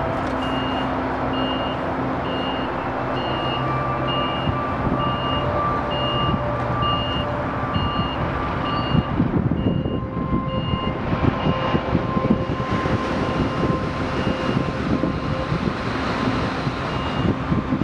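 Reversing alarm on demolition plant beeping about once a second over the steady running of heavy diesel machinery. The machinery noise turns rougher and more uneven from about halfway.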